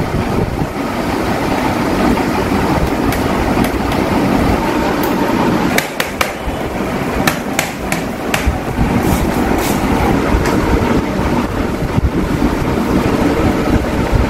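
Hands handling a TV's metal back chassis and LCD panel: a scatter of sharp clicks and taps from about five to ten seconds in, over a steady, loud rumbling background noise.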